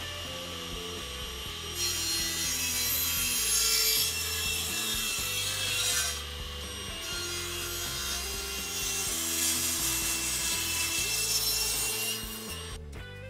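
Table saw ripping thin strips of hardwood fed with a push block: two cuts, the first from about two seconds in to six, the second from about seven seconds to near the end, with the blade running between them. Background music plays underneath.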